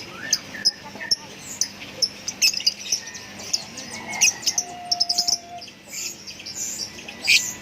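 Lovebird chirping: short, sharp, high-pitched chirps in quick irregular runs, densest near the end.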